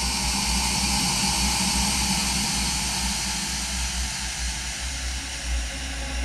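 A woman's coughing fit on stage, slowed down about twenty-four times, smeared into a steady hissing drone with a pulsing low rumble underneath.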